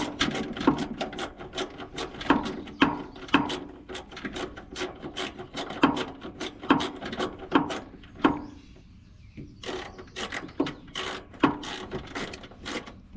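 Socket ratchet wrench with a 10 mm socket clicking rapidly and steadily as a bolt is run in by hand, with a brief pause about two-thirds of the way through before the clicking resumes.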